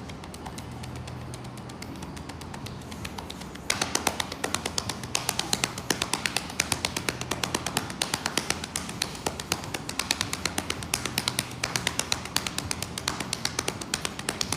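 Hands slapping on thighs in a quick, even drum-like rhythm, starting a few seconds in.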